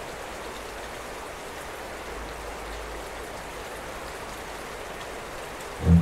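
Steady hiss of water with no rhythm or pitch. Near the end a loud, low boom cuts in.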